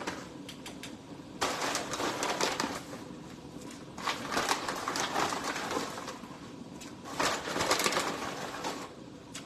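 Pans bubbling on the stove: red mullet simmering under a lid and a pot of pasta water at the boil. Three bursts of crackly rustling come over it, about a second and a half in, at about four seconds and near the end.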